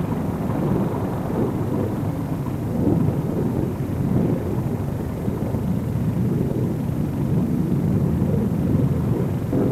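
Steady low rumbling roar of aircraft noise as the X-15 rocket plane slides to a stop on its landing skids.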